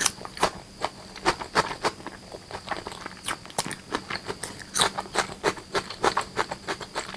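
Close-miked wet chewing and lip-smacking of a mouthful of spicy chicken curry and rice, a quick irregular run of sharp mouth clicks, several a second.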